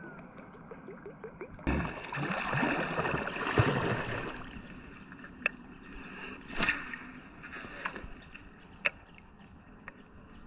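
Kayak paddle sloshing and gurgling in the water for about three seconds, followed by a few sharp knocks.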